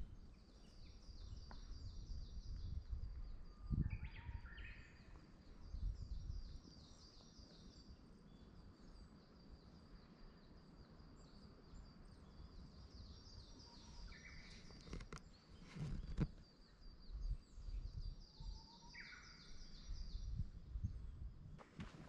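Songbirds singing in woodland: a long, high, rapid trill repeats through most of the time, with a few shorter, lower phrases. Underneath are soft, irregular thumps of footsteps on the path, with a sharper knock twice.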